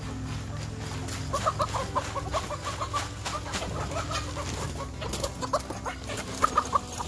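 Chickens clucking in quick runs of short calls, starting about a second in, with a plastic sack crinkling.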